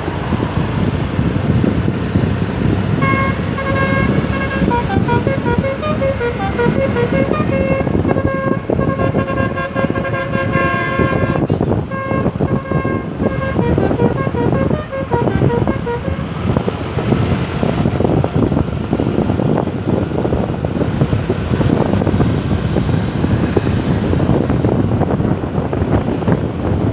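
Basuri V3 telolet bus horn, a multi-trumpet musical horn, playing a quick run of changing notes from about three seconds in to about sixteen seconds in. Loud wind and traffic noise runs under it and is all that is left after the horn stops.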